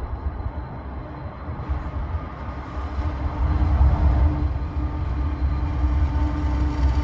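Union Pacific diesel freight locomotives approaching on the main line: a deep engine rumble with a steady hum, growing louder about three seconds in as the train draws near.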